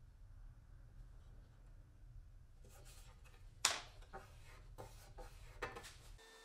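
A thin fibreboard strip handled and set down on a metal router table plate: a scatter of light taps and clicks in the second half, the sharpest about three and a half seconds in, over a low hum that cuts off near the end.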